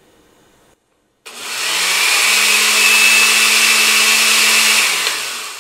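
Countertop blender running briefly on lemon juice and sugar: the motor spins up about a second in, runs steady with a high whine, then winds down near the end.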